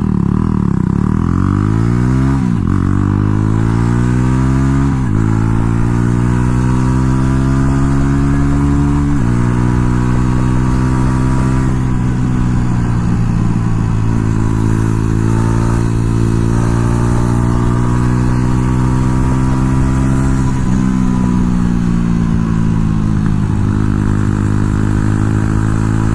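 Jawa Perak's single-cylinder engine running through a loud aftermarket exhaust as the motorcycle accelerates, revs climbing and dropping through three upshifts in the first nine seconds. It then cruises at steady revs, easing off and picking up again a little past twenty seconds.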